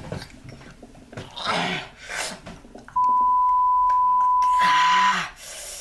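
A steady, single-pitched censor bleep at about 1 kHz, starting about three seconds in and lasting about two seconds, laid over an outburst. Before it come two short breathy, hissing sounds.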